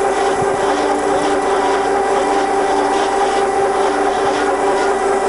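Kasto twin A4 double-column automatic bandsaw running with a steady hum of several tones while its saw bow rapids down toward the material, not yet cutting.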